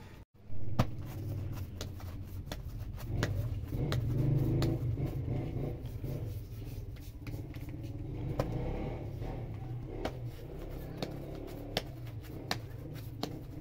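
Hands pulling and shaping soft bread dough into balls on a floured cloth, with scattered soft pats and sharp ticks, over a steady low rumble that swells a little about four seconds in and again near eight seconds.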